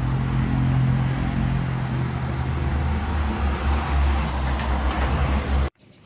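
Heavy cargo truck's engine running as it drives along a road, with tyre and road noise; the engine note drops lower about three and a half seconds in. The sound cuts off suddenly near the end.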